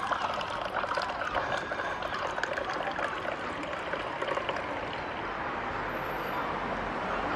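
Moroccan mint tea poured in a thin stream from a metal teapot held high into a small tea glass: a steady trickling pour.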